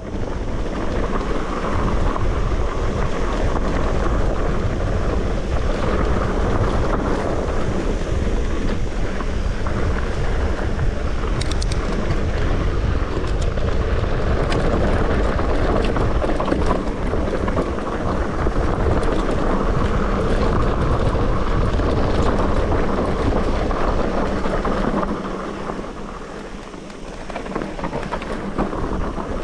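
Wind buffeting the microphone of a camera riding on a mountain bike, with the rumble of the bike rolling along a trail underneath. The noise eases for a few seconds near the end.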